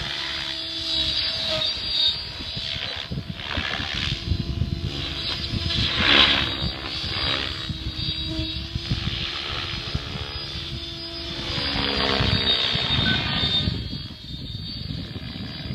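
Synergy 766 electric radio-controlled helicopter in flight: motor and rotor-blade whine that rises and falls in pitch as it manoeuvres, swelling loudest about six seconds in.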